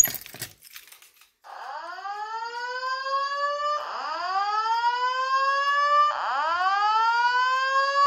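A Simplex fire alarm speaker strobe sounding a slow whoop evacuation tone: rising sweeps, each just over two seconds long, repeating from about a second and a half in. At the very start, a sharp click with keys jangling at a manual pull station.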